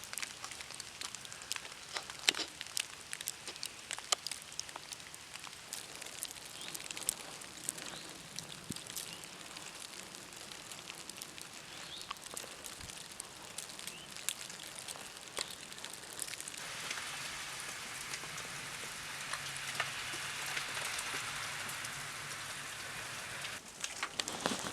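Wet snow falling, with a soft hiss and scattered light ticks and patters of flakes and drips landing on surfaces. A steadier hiss with a faint low hum comes in about two-thirds of the way through and stops about a second before the end.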